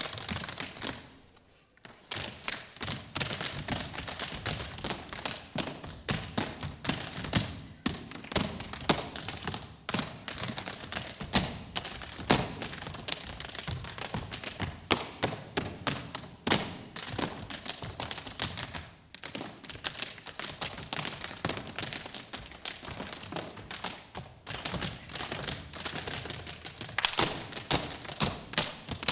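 Tap shoes of a group of five dancers striking a wooden stage floor in quick, rhythmic patterns of clicks and heavier stamps. After a short lull about a second in, the taps run on densely, with the loudest accented strikes near the end.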